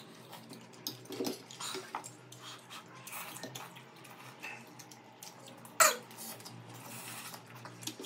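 Close-up eating sounds: wet slurping and chewing of noodles, with forks and spoons scraping and clicking against plates. One sharper, louder clink or slurp comes about six seconds in.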